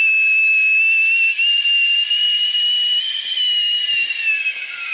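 Cartoon steam-whistle sound effect of steam jetting out of a character's ear: one long, steady high whistle over a hiss, sagging slightly lower in pitch near the end.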